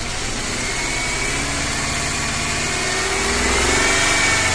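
BMW M43TU four-cylinder petrol engine idling on three cylinders with cylinder 2's spark plug lead pulled, running without knocking. The knock disappears with cylinder 2 cut out and returns when it is put back, which the owner takes for worn connecting-rod bearings on cylinder 2.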